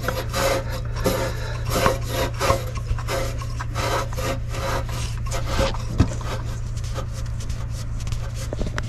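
Irregular rasping rubs and scrapes of a hand and sleeve working in a tight space to screw a new oil filter onto its thread by hand, over a steady low hum, with one sharp knock about six seconds in.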